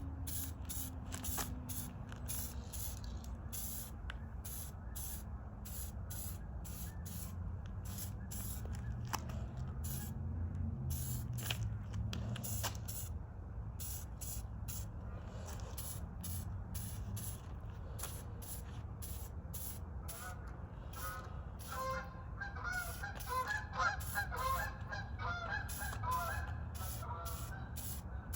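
SprayMax aerosol spray-paint can hissing in short passes over a car fender. Honking calls come in over the last several seconds.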